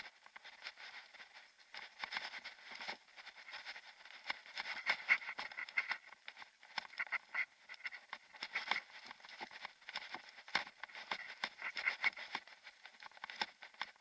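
Mountain bike rolling over a gravel forest track, picked up by a bike- or body-mounted action camera: a dense, irregular clatter of small knocks and rattles with no low rumble.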